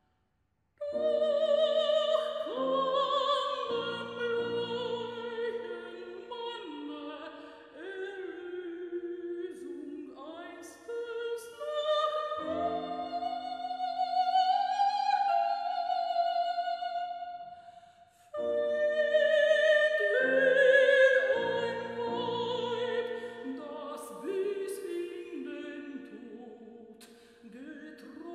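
Operatic soprano singing with a wide vibrato to piano accompaniment. She comes in loudly about a second in, breaks off briefly a little after halfway, and comes in loudly again.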